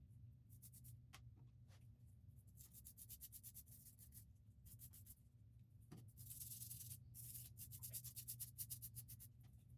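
Faint, rapid back-and-forth hand rubbing strokes on a steel caliper part, in quick runs that are densest near the end, with a brief hissing pass about six seconds in and a low steady hum underneath.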